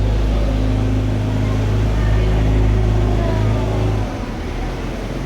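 River tour boat's motor running with a steady low hum that drops in level about four seconds in.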